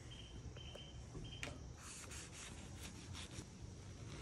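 A knife sawing through a crusty breaded pork tenderloin sandwich and bun on a wooden cutting board: a click, then several short rasping strokes.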